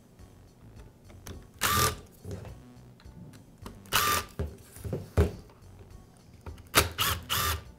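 Cordless driver backing out the screws that hold an angle grinder's gearbox to its motor housing, in short whirring bursts: one about two seconds in, one about four seconds in, and three quick ones near the end, with small clicks between.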